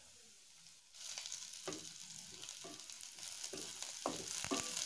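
Chopped garlic and curry leaves sizzling quietly in butter in a kadai, with a wooden spatula scraping and knocking against the pan as it stirs. The sizzle starts after about a second of silence.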